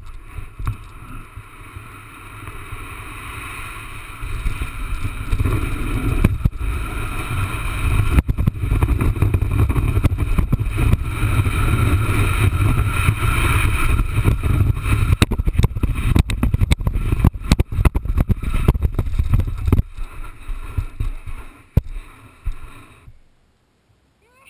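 Wind buffeting the board-mounted microphone and sand hissing under a sandboard ridden head-first down a dune. The rush builds about four seconds in, turns crackly and bumpy near the end, and stops suddenly about a second before the end as the board comes to rest.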